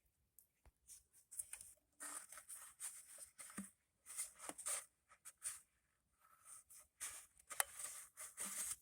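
Intermittent scraping and rustling with a few sharp clicks: hands working at the spark plug hole of the woodchipper engine.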